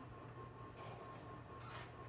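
Quiet kitchen room tone: a low steady hum with a couple of faint soft rustles.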